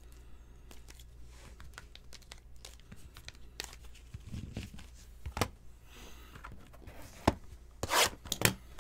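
Trading cards being handled and stacked by hand: scattered light clicks and taps, with a short crinkling burst near the end.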